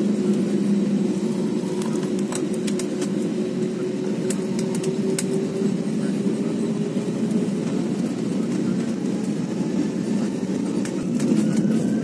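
Passenger aircraft engines and cabin noise heard from inside the cabin as the plane rolls along the runway: a steady hum with a low drone and a few scattered clicks. Near the end the engine pitch starts to rise and the noise grows louder.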